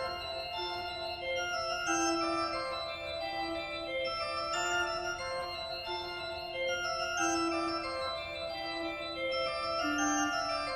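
Background music of slow, sustained keyboard chords, organ-like in tone, with notes held and changing every second or so.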